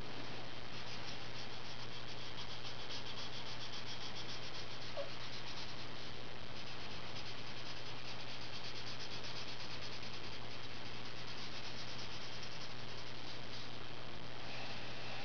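Crayola Super Tips felt-tip marker scratching on paper in quick back-and-forth coloring strokes, over a steady hiss and low hum.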